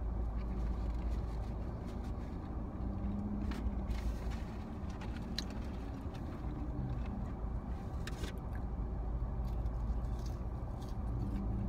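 Steady low rumble of a car engine idling, heard from inside the car, with a few faint small clicks scattered through it.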